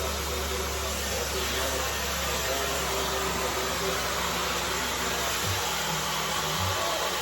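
Dyson hair dryer with a diffuser attachment running steadily: an even rush of blown air without a break.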